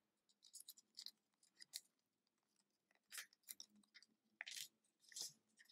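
Faint, scattered crinkles and soft clicks of origami paper being folded and pressed flat by fingers, a few short rustles a second or so apart.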